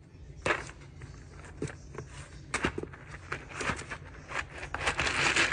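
Paperboard cheese box being forced open by a thumb at its perforated tab: scattered cracks and rips of cardboard, with a longer, louder tearing rip near the end.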